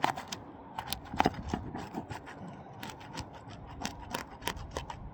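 Asphalt roof shingle's sealant strip being pried apart by hand: irregular sharp crackles and ticks with some scraping as the adhesive bond breaks.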